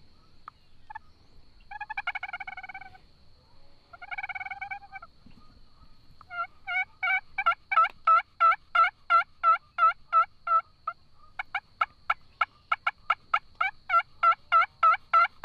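Turkey calling: a few short notes, two drawn-out calls about a second long, then long fast runs of yelps, about five a second, that pause briefly near eleven seconds and start again.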